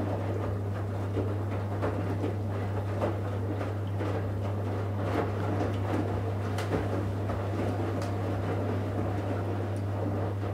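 Electrolux EWF 16589 W front-loading washing machine in the wash phase of a 60 °C cotton programme: the drum turning and wet laundry sloshing and splashing, with scattered light knocks over a steady low hum.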